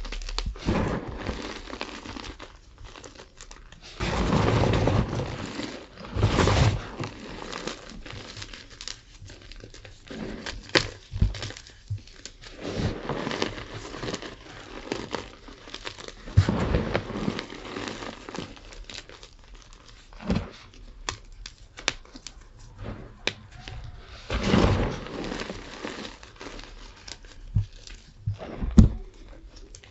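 Gym chalk being crushed, crunching and crackling in irregular bursts with sharp little clicks, the loudest crunches coming at about 4, 6, 17 and 25 seconds in.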